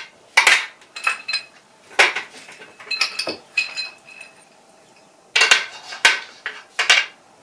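Small metal bolts and spacers clinking and tapping as they are picked up and set down on a folding table, in scattered clusters of sharp clicks that ring briefly, with a lull about four to five seconds in.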